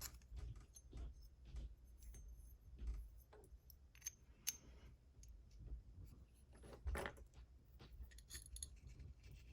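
Faint, scattered small metallic clicks and taps of a challenge lock and its tools being handled while the lock is taken apart, with a couple of sharper clicks about four and a half and seven seconds in.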